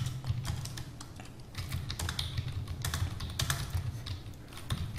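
Typing on a computer keyboard: an irregular run of key clicks over a low steady hum.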